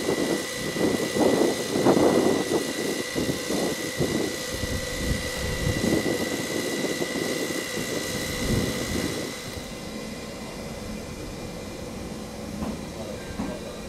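A shunting locomotive moving a passenger coach slowly along the track: uneven rumbling and clatter of wheels with a steady high whine. The sound drops away about nine and a half seconds in, leaving a quieter, even hum.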